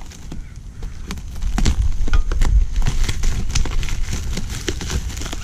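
Plastic shrink wrap crackling and crinkling as it is torn and peeled off a powder-coated scooter frame part, a quick run of sharp little snaps, with heavier low thumps of handling from about a second and a half in.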